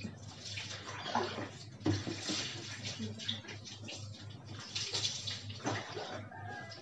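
Water poured from a plastic dipper over a wet dog's soapy coat, splashing onto a tiled floor in repeated pours, with the dipper scooped back into a tub of water between them: the soap being rinsed off.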